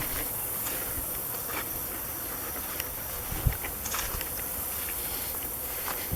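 Steady high-pitched insect chorus in summer woods, with scattered light rustles and crackles and one low thump about three and a half seconds in.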